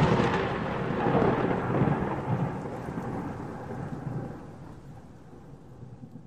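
Thunder sound effect: a crackling rumble that starts loud and slowly fades away over several seconds.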